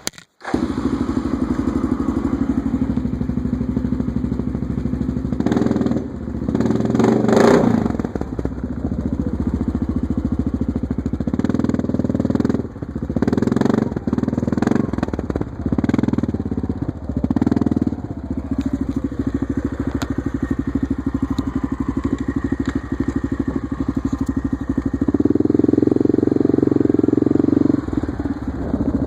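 Yamaha Grizzly 660 ATV's single-cylinder four-stroke engine running through an HMF Penline Pro Series aftermarket exhaust, very loud, while the quad is ridden slowly. The revs rise briefly about seven seconds in, and the engine is louder again for a few seconds near the end.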